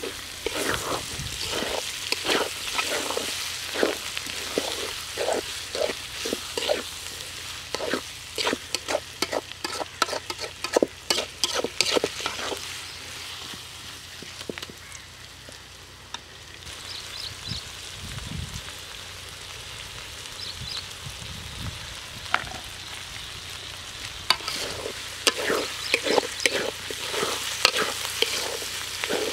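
Onions, tomatoes and green chillies sizzling in a metal kadai while a metal spatula stirs them, scraping against the pan. The scraping comes in quick runs for the first dozen seconds and again near the end, with a quieter stretch of plain sizzling in between.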